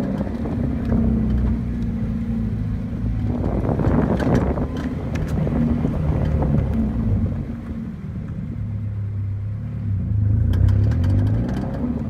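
A Scion FR-S rolling at low speed, heard from outside by the rear wheel: engine and tyre noise with a few sharp clicks from the rear drive axle. The owner takes this ticking for a failing axle or CV joint.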